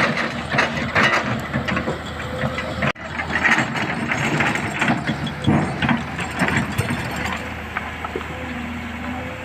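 Excavator working in rock: irregular clanking and scraping of steel on stone over a running engine, with a brief break about three seconds in.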